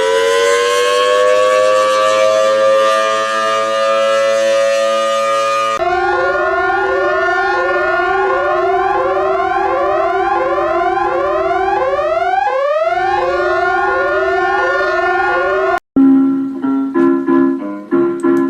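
An emergency warning siren winds up in pitch and settles into a steady wail. About six seconds in it switches abruptly to an electronic alarm of quick, repeated rising sweeps over a steady tone, which cuts off near the end. A few short musical tones follow.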